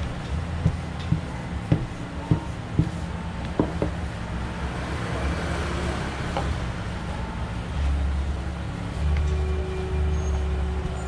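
Wooden rolling pin knocking and rolling on a wooden table as dough is rolled out: a string of sharp knocks in the first few seconds and one more a little past halfway. Under it runs a steady low rumble, louder near the end.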